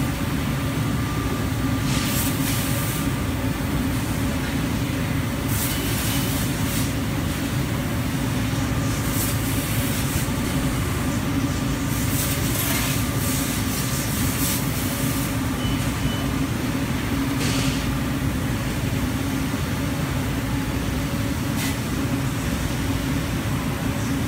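CNC laser cutting machine running while it cuts knife blanks from sheet metal: a steady, loud machine drone with a low hum, and brief hissing bursts every few seconds.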